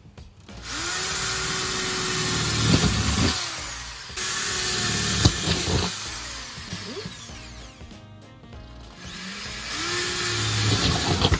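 Electric drill boring through a camper trailer's thin sheet-metal and styrofoam wall. The motor spins up and runs in three stretches of a few seconds each, with a pause between the second and third, over background music.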